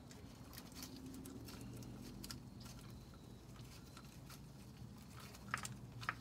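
Faint, scattered small clicks and taps of a socket and a 10 mm bolt as the bolt holding the transmission filter is turned out by hand, over a low steady hum.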